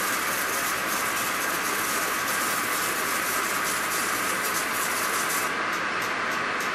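Metal engine lathe running, a high-speed steel tool turning an eccentric (offset) diameter on a part held off-centre in a four-jaw chuck: a steady hissing machining noise.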